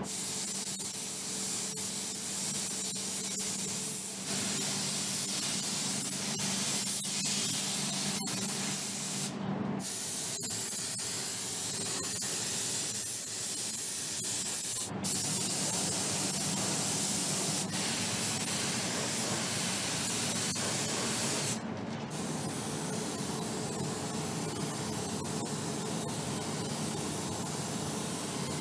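Gravity-feed compressed-air paint spray gun hissing steadily as paint is sprayed, breaking off briefly a few times, over a low steady hum.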